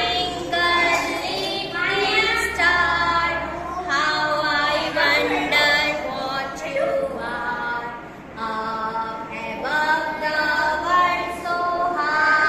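A group of young children singing a nursery rhyme together in sung phrases with short breaks, dipping briefly about eight seconds in.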